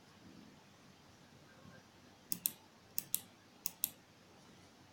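Three quick double-clicks of a computer pointer button, opening a photo file on a laptop.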